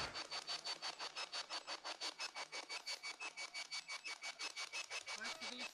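Film projector clatter: a steady, rapid mechanical rattle of about nine clicks a second, used as a sound effect under an old-film visual treatment.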